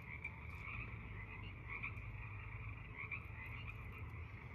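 A chorus of frogs calling: many short overlapping calls forming a steady chorus, with a faint low hum underneath.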